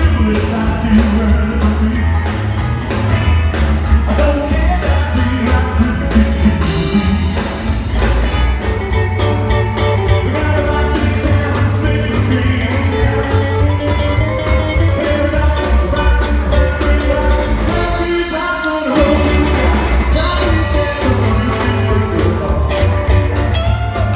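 Live rockabilly band playing: upright bass, hollow-body electric guitar and drums. The bass drops out for a moment near the end before the band comes back in.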